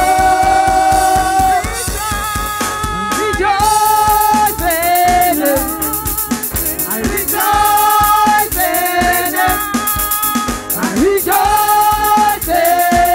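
Gospel praise team of women singing into microphones, holding long notes with glides between them, over a band with a steady drum beat.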